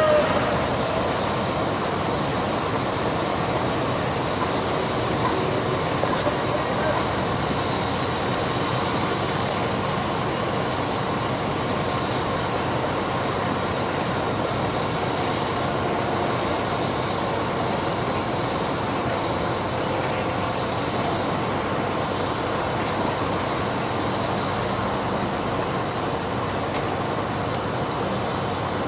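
Fire truck running its pump while a hose pours water onto pavement: a steady rushing noise that holds evenly throughout, with a crowd chattering.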